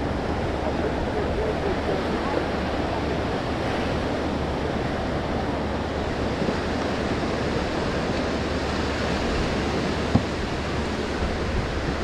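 Ocean surf washing steadily on a beach, with wind on the microphone. A single sharp click about ten seconds in.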